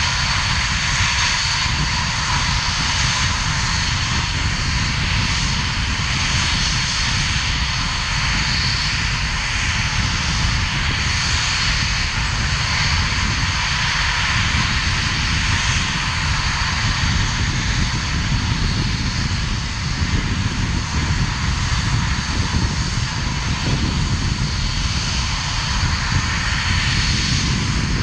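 Two-seat Mirage 2000 fighter's single SNECMA M53 turbofan running steadily on the ground: a continuous high jet whine over a low rumble.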